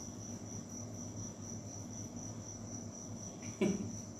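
A steady, high-pitched insect chirp pulsing evenly throughout. One brief louder sound comes about three and a half seconds in.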